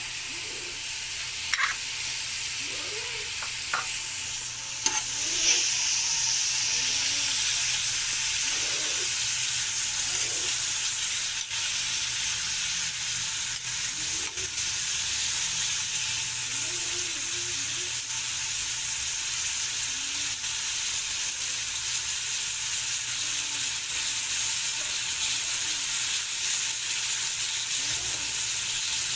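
Onion, garlic and ginger sizzling as they are sautéed in hot oil, with a utensil stirring and clicking against the pan now and then. The sizzle grows louder about five seconds in and then holds steady.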